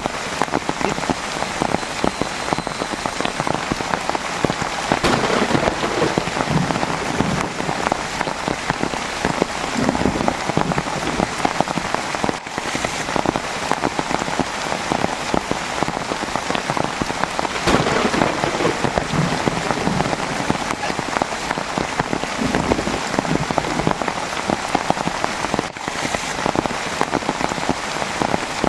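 Heavy rain falling steadily: a dense patter of countless drops striking a surface.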